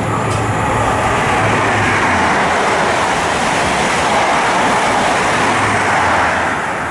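Steam-hauled passenger train pulling out of the station: a steady rushing rumble from the coaches and locomotive getting under way, easing off near the end.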